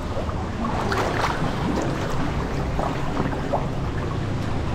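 Swimmers splashing and stroking through water, with irregular splashes over a steady low rushing noise.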